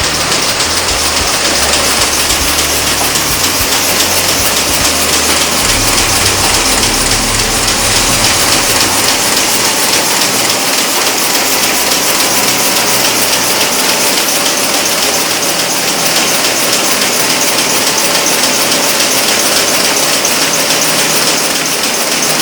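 Print-shop machinery running steadily: a loud, dense, fast rattle that sounds almost like a hiss.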